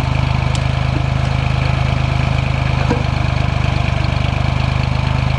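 Small Ford tractor's engine running at a steady speed while it drives a three-point-hitch backhoe: an even low drone with a fast regular pulse and no revving.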